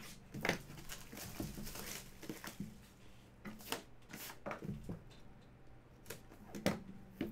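Plastic shrink-wrap tearing and crinkling as a sealed trading card box is unwrapped, with scattered taps and scrapes from the cardboard box being handled.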